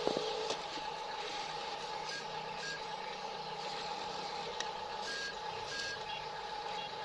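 Remote-control toy construction vehicle running with a steady electric motor whine, while short high electronic beeps sound in pairs about every three seconds, like a reversing beeper.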